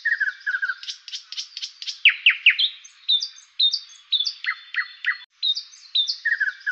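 Songbird chirping and whistling in quick runs, with many short falling whistles. It breaks off abruptly about five seconds in and the same passage begins again, as in a looped birdsong recording.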